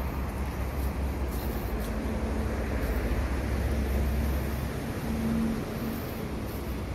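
A steady low outdoor rumble with hiss that swells about three to four seconds in and eases off just before five seconds, with a faint hum near the end.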